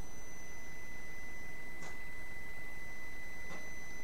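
A steady, high electronic tone held at one pitch, with a faint click about two seconds in and another near three and a half seconds.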